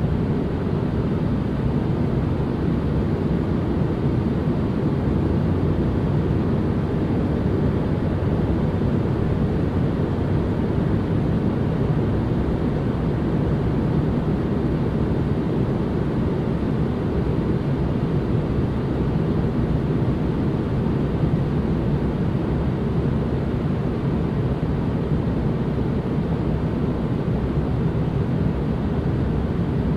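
Steady, unchanging noise for relaxation, weighted to the low end so it sounds like a deep, even rumble rather than a bright hiss.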